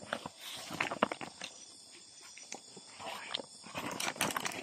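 Woven plastic sack rustling and crinkling as it is handled, with irregular clicks and crackles, busier near the end.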